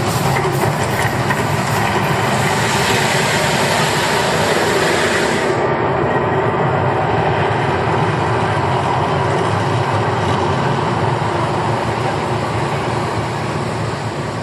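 A loud, steady rumbling noise, easing off slowly near the end, from the Las Vegas volcano attraction's eruption show.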